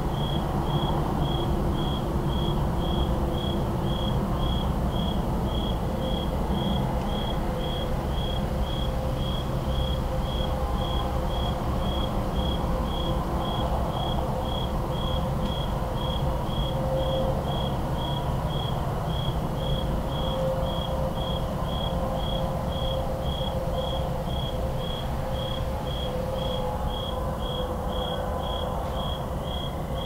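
A cricket chirping at an even pace, about two high chirps a second, over the low, steady rumble of distant highway traffic.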